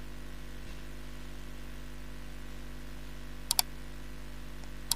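Steady electrical hum and hiss of a sound system with no one speaking, broken by two short sharp clicks, one about three and a half seconds in and one at the very end.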